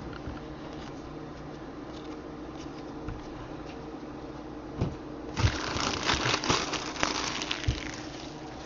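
Computer keyboard typing: a quick run of clicking keystrokes starting about five seconds in and lasting a couple of seconds, over a faint steady hum.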